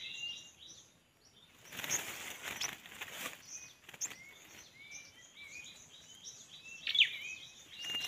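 Small birds chirping in short repeated notes, a few a second, with rustling of leafy branches being handled by hand. A sharper, louder squeak comes about seven seconds in.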